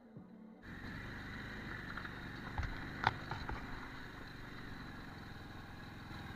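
Motorcycle engine running as the bike rides over a rough, stony dirt track, with the rattle and noise of the ride over it, coming in about half a second in. A few sharp knocks from the rocky surface, the loudest about three seconds in.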